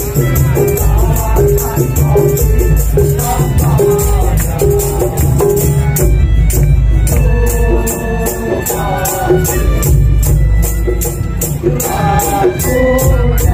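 Madurese ul daul parade band playing loud: deep pounding drums under a steady rattling shaker-and-jingle beat, with a melody running over the top.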